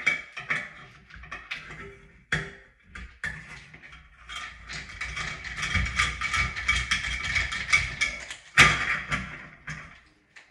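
Screwdriver and metal shower-valve trim parts being worked at a Delta shower valve: a run of quick clicks and scrapes that thickens through the middle, with one louder clatter near the end.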